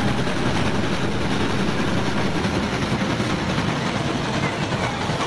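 Steam locomotive hauling passenger cars as it runs past, a steady, even rumble.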